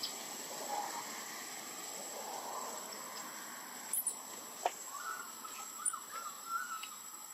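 Newborn macaque infant crying in a run of short, wavering, high-pitched calls a little past the middle: a hungry baby calling to nurse.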